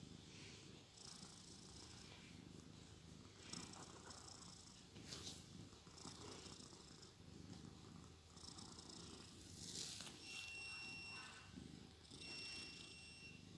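Domestic cat snoring softly in its sleep: a faint, low, purr-like rasp with slow, even breaths about every two seconds. In the last few seconds a thin high whistle comes back with each of the breaths.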